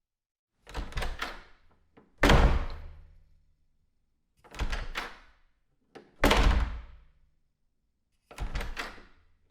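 A door handled with a quick run of latch clicks and rattles, then shut hard with a loud slam that rings out, twice over; a third round of rattling starts near the end.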